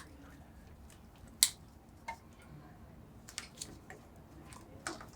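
Scattered small clicks and taps from handling a wiring cable and its plastic connector, the sharpest about a second and a half in.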